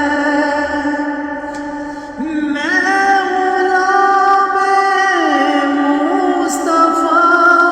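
Music: a naat sung in long, held notes that glide from one pitch to the next, with no clear words; a new phrase begins about two seconds in.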